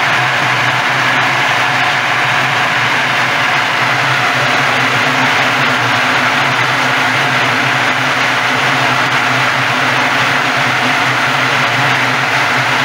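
Walnut hulling machine running steadily: a loud, even machine hum under a continuous rushing noise, with no pauses or changes.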